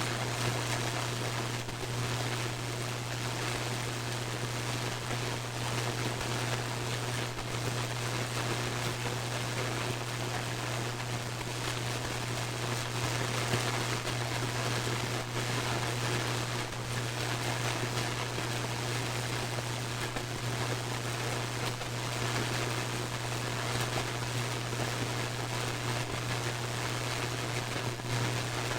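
Radio receiver hissing with static and a steady low hum. A few brief crackles of static break through, each one a lightning discharge picked up by the radio.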